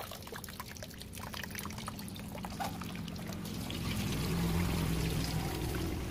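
Water running from a tap into a plastic basin while hands splash and swish skinned frog meat in it; the running water grows louder about four seconds in.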